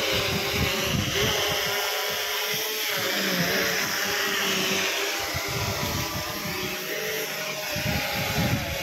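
A motor running steadily, a whir with several held tones over an even haze.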